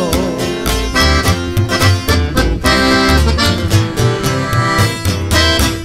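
Norteño band playing an instrumental break: accordion carrying the melody over strummed guitar and regular plucked notes of a tololoche (upright bass).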